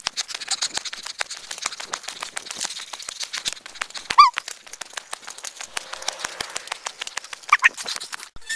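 Dense crackling and scraping clicks throughout, with one short rising animal cry about four seconds in and a brief fainter cry near the end.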